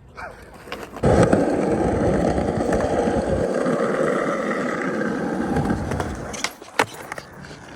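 Skateboard on soft 78A wheels rolling over pavement: a steady rolling rumble that starts suddenly about a second in and dies away after about five seconds, followed by a few sharp clicks.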